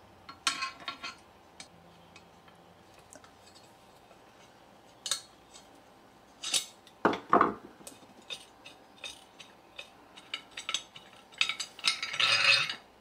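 Scattered metal clicks and clinks as a screwdriver works the screw in the end of a vintage aluminum omelet pan's handle and the metal hanging ring is handled. There is a louder knock about halfway through and a denser clatter near the end.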